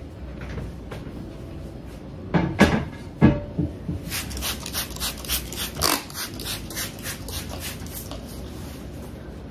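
A few dull knocks, then a quick run of short rustling strokes, about three a second, from paper towels and a spray bottle being handled.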